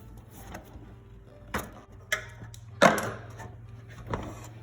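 Four knocks and clunks as the fuel tank of a Honda CBR250R is worked free of its hose and lifted out; the loudest comes near the middle. A low steady hum runs underneath.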